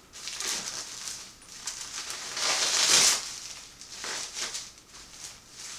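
Clear plastic wrapping crinkling and rustling in the hands as it is pulled open and off a packed item, loudest from about two and a half to three seconds in.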